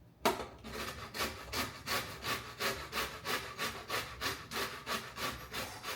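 Lemon being zested: the peel rubbed back and forth against a metal grater in quick, even rasping strokes, about three a second.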